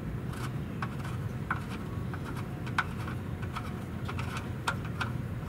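Small irregular clicks and rubbing as fingers spin a loosened oil drain plug out of a Ford Excursion's oil pan, over a steady low hum.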